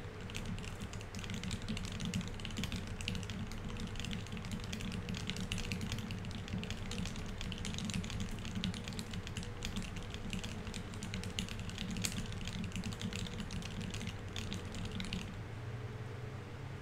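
Fast, continuous touch-typing on a Keycult 1/65 mechanical keyboard with lubed Tealios V2 67 g linear switches, C3 stabilizers and GMK Oblivion keycaps, at about 147 words a minute. The keystrokes come in a dense, unbroken stream and stop abruptly near the end.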